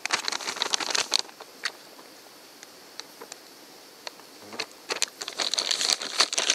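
Plastic zip-top bags crinkling and rustling as they are handled and opened, in two spells: through the first second or so, and again from about four and a half seconds in, with a few light ticks between.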